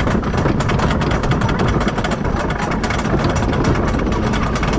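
Wooden roller coaster train climbing the chain lift hill, with a steady rapid clicking of the lift chain and anti-rollback dogs over a low mechanical rumble.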